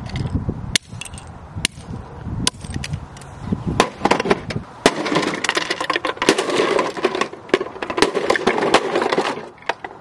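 Hard-plastic toys being smashed on concrete, first a Memory Maze electronic game, then a Theo Klein Miele toy washing machine. Single sharp cracks and knocks about a second apart give way, about halfway through, to a dense run of plastic cracking, breaking and pieces clattering.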